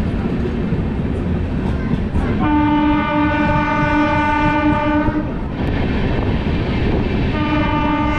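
Passenger train's horn sounding two blasts: one of about three seconds starting a couple of seconds in, and a second starting near the end. Under both runs the steady rumble of the moving train, heard from an open coach door.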